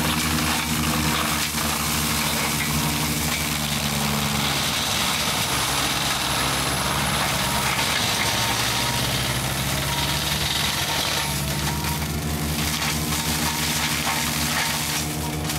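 Picursa tracked hydraulic forestry mulcher running and shredding brush and undergrowth with its front mulching head: a steady engine note over a dense grinding, churning noise. For several seconds in the middle the engine note dips and wavers, then steadies again.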